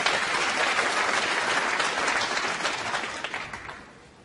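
Snooker audience applauding a pot of the blue, the clapping loud at first and dying away near the end.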